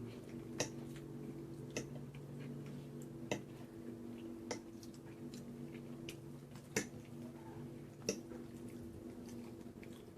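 Eating pasta: quiet chewing with sharp, short mouth clicks every second or two, over a steady low hum.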